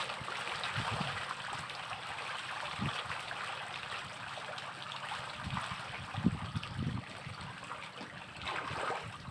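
Water splashing and churning at the surface of a floating fish cage as feed pellets are scattered onto it and the fish rise to feed, a steady hissing splash with a few dull low thumps.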